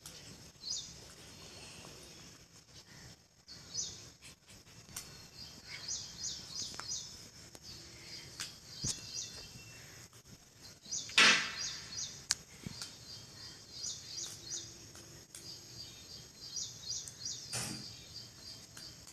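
Small birds chirping in short, repeated high-pitched phrases, with faint clicks from bangles being mouthed by a puppy. Two louder harsh sounds cut in, one about eleven seconds in and one near the end.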